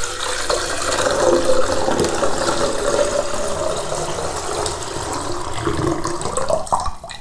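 A steady stream of water poured from a glass jug into the APG stove system's cooking pot, filling it with about a litre. The pour stops about seven seconds in.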